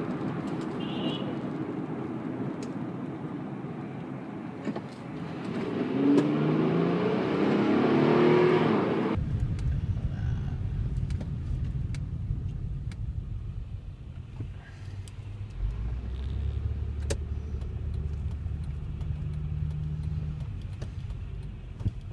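2005 Honda Pilot's V6 engine and road noise heard from inside the cabin while driving. The engine climbs in pitch as the car accelerates for a few seconds, then the sound cuts off suddenly about nine seconds in and gives way to a low, steady engine drone.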